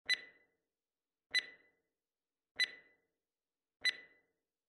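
Four identical short, sharp ticks, each with a brief bright ring, evenly spaced about a second and a quarter apart: an edited-in sound effect.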